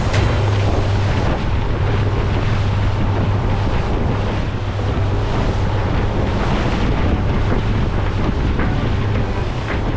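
Motorboat under way: a steady engine hum beneath wind buffeting the microphone and water rushing past the hull.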